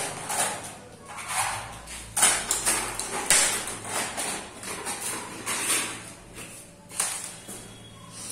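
Irregular shoe scuffs and soft footsteps on a tiled floor, about one or two a second.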